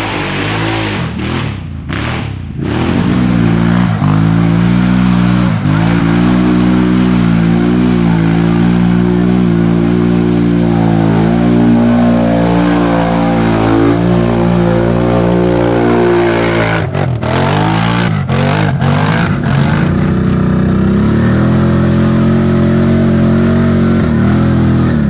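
ATV engine held at high revs as the quad churns, bogged down in deep mud. The revs dip sharply once about two-thirds of the way through, then climb back up.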